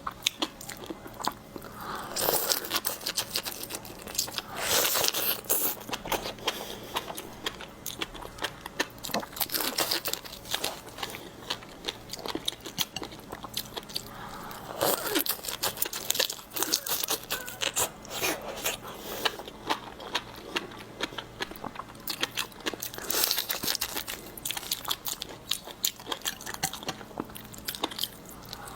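Close-miked eating of seafood: dense crunching and chewing with sharp crackles throughout, and louder bites every few seconds.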